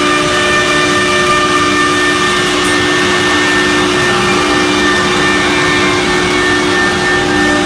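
A CNC router's 6 kW HSD spindle running at speed while the head cuts across a sheet on the vacuum table. It gives a loud, steady whine of several held tones over an even rushing noise.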